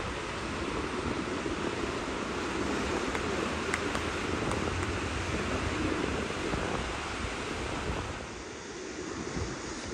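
Ocean surf breaking and washing onto a sandy beach: a steady rush of waves, with wind rumbling on the microphone.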